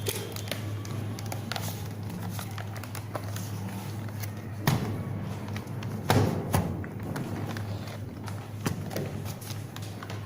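Clicks and knocks of laptop parts being handled and fitted during reassembly, with a few sharper knocks about halfway through, over a steady low hum.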